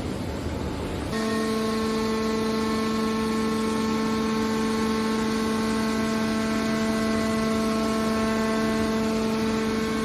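Hydraulic can baler's power unit running: a steady noisy hum, joined about a second in by a steady pitched whine that holds without change.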